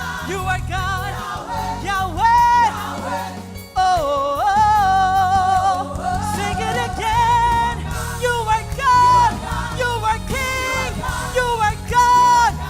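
Live gospel worship music: singers holding and sliding long sung notes with vibrato over a full band.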